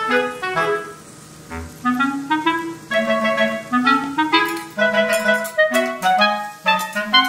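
Background music: a clarinet-led tune of short, quick notes over a bass line, dipping briefly about a second in.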